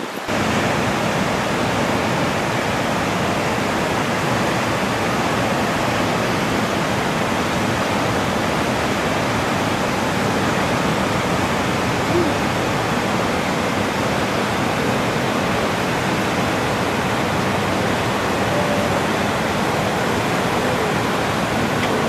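Steady, even rushing noise of ocean surf and wind, with no distinct wave crashes standing out.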